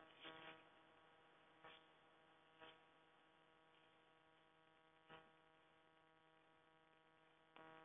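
Near silence: a faint steady electrical hum, with about five brief faint ticks scattered through it.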